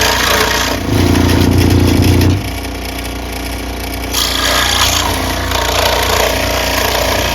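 Electric scroll saw running with a steady hum while its blade cuts partway into a bamboo tube; the sound gets heavier for about a second and a half near the start and hissier for a moment around the middle.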